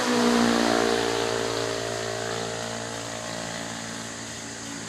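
Electric fishing rig humming with a stack of steady pitched tones. It swells loud just after the start, then eases off over the next few seconds.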